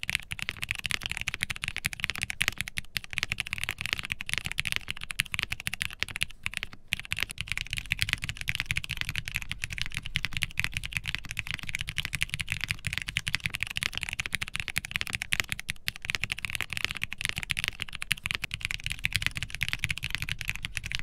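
Fast, steady typing on a QwertyKeys QK65 mechanical keyboard with an aluminium plate, foam and Cherry MX Red switches under GMK ABS keycaps: a dense run of keystroke clacks. The switches are hand-lubed at first, which makes them less pingy and slightly deeper, and partway through the same switches are heard unlubed.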